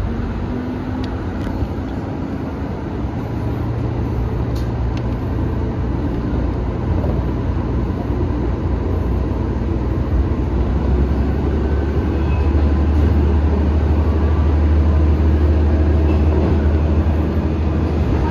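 KRT 8000 series diesel railcar's IHI 296 hp diesel engine working under load as the railcar pulls away and gathers speed, heard from the driver's cab. About ten seconds in the engine note drops to a deeper, stronger hum, and the sound grows steadily louder.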